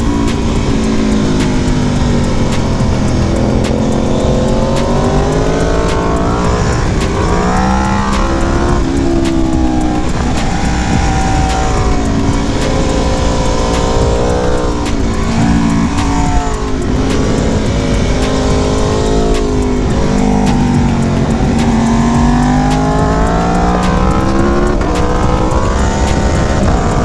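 Aprilia sport motorcycle engine running hard on the move, its pitch climbing under throttle and dropping again over and over, with a steady wind rumble underneath.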